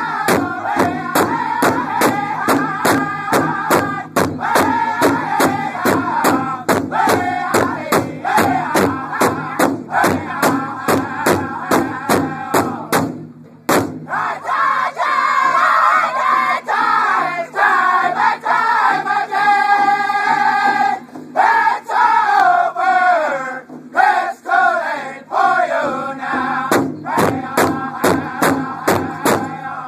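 Powwow drum group singing a round dance song together while striking a large shared drum with sticks in a steady beat of about two strokes a second. Just before the halfway point the song pauses briefly; the drumbeat then falls away while the singing carries on, and the drum comes back in strongly near the end.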